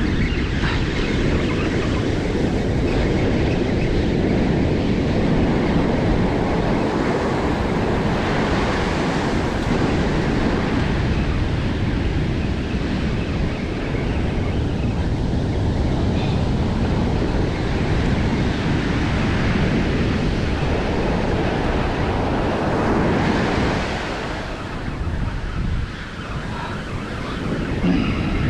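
Ocean surf breaking and washing up a sandy beach, a steady rush with wind buffeting the microphone, easing slightly a few seconds before the end.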